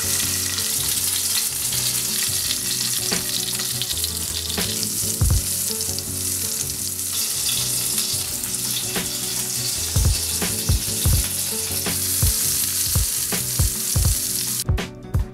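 Ahi tuna steak searing in a hot pan of foaming butter, sizzling steadily, with a few low thuds. The sizzle cuts off just before the end.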